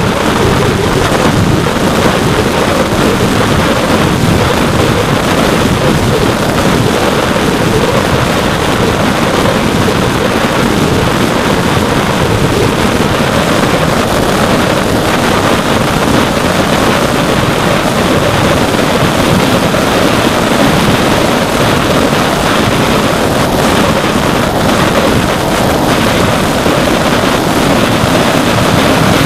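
In-flight audio from the onboard camera of an RC plane: a steady, loud rush of wind over the microphone, with the plane's brushless outrunner motor and 8-inch propeller running underneath it without a break.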